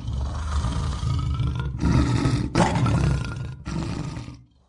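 Logo-intro sound effect: a deep, noisy roaring rumble in four bursts with short breaks between them, fading out near the end.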